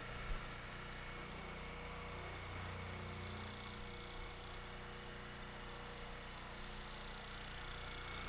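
Electric motor running with a Scotch-Brite deburring wheel spinning on its shaft: a steady hum. The wheel has the bit of run-out expected from the adapter's drilled bore, enough to make the motor vibrate on the bench.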